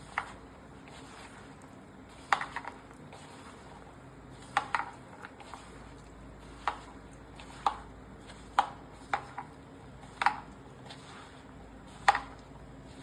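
Spoon knocking against a mixing bowl while corn kernels are tossed with corn flour, maida and spices: sharp clinks about once a second, some in quick pairs.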